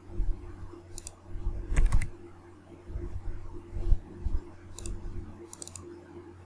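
Computer keyboard keys and mouse clicks as values are entered: a few separate clicks spread out, with some dull low thuds and a steady low hum underneath.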